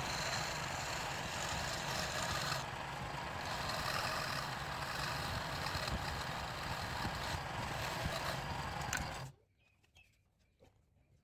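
A machine running steadily with a dense whirring noise, which cuts off suddenly about nine seconds in, leaving only a few faint clicks.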